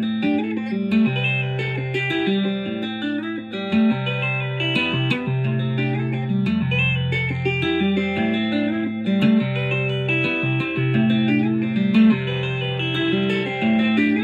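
Electric guitar in DAEAC#E tuning, capoed, played with two-handed tapping: a repeating Midwest emo riff of ringing, overlapping notes over a recurring bass-note figure.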